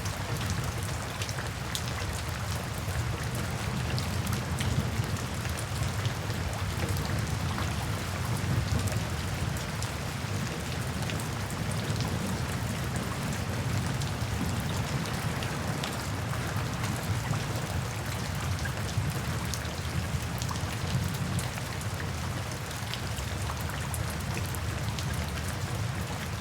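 Steady rain falling, many separate drops ticking sharply over a continuous hiss, with a low rumble underneath.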